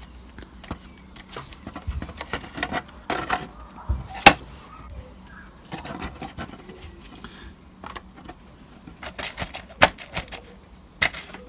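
Hands handling a plastic model house kit, its taped-on mylar stencil and a paint sponge: irregular soft taps and clicks, the sharpest about four seconds in.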